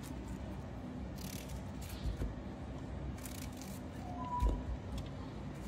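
Cauliflower florets being broken apart by hand, giving a few soft crackling snaps over a low steady hum. A brief two-note whistle sounds a little after four seconds in, with a low thump just after it.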